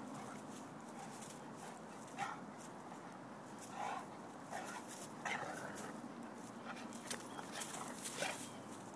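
Two Great Danes play-wrestling, giving short dog vocalizations several times from about two seconds in, the loudest near the end.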